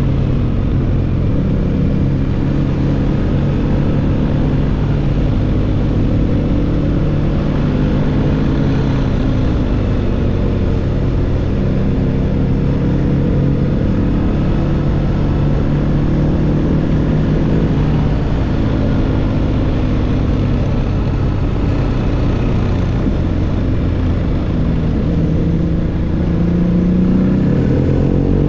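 BMW R1250GS boxer-twin engine under way through an SC-Project SC1-R GT aftermarket exhaust, running at fairly steady revs with small rises and falls. Near the end the revs climb as it accelerates.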